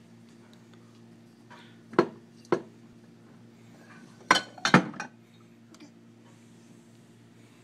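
Glass wine bottles clinking against each other in a wooden rack as a baby's hand knocks and pulls at them: two sharp clinks about half a second apart, then three more in quick succession a couple of seconds later.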